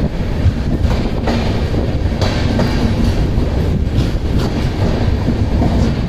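Double-decker express train coaches running on the rails as the train pulls along a station platform: a steady, loud wheel-and-rail rumble with occasional sharp clicks, heard from the open coach doorway.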